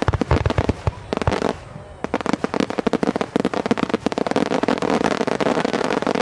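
Fireworks display: aerial shells going off, with deep booms in the first second or so, then a brief lull and a long, dense run of rapid crackling reports from about two seconds in.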